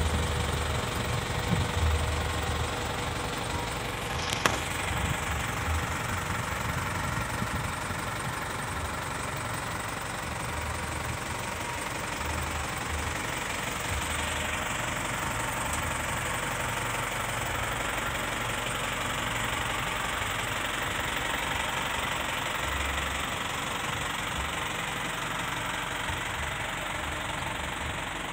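Isuzu NQR medium bus's four-cylinder diesel engine idling steadily, with a single sharp click about four seconds in.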